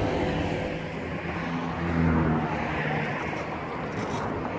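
A motor engine running, its pitch shifting and its sound swelling to the loudest point about two seconds in, over a steady rushing noise.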